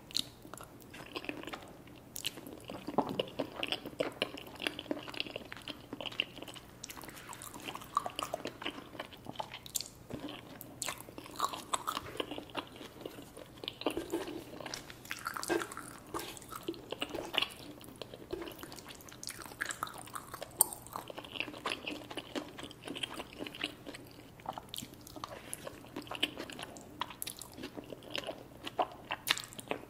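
A person chewing and biting into food, with frequent short sharp crunches, while eating creamy alfredo pasta and chicken wings.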